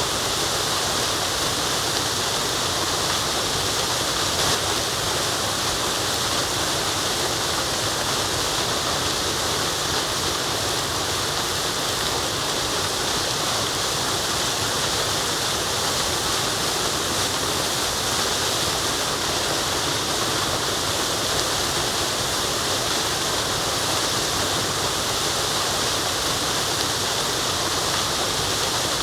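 Waterfall: water falling and running, a steady loud rush without breaks.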